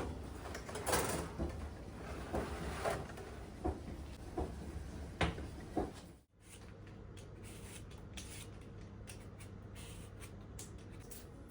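Kitchen handling sounds: scattered light knocks, clicks and rustles. About six seconds in they cut off abruptly, and a steady low hum follows with a few faint ticks.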